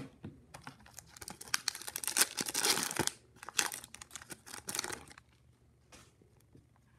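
Plastic wrapper of an Upper Deck MVP hockey card pack crinkling as it is torn open, a dense run of crackles that dies away about five seconds in.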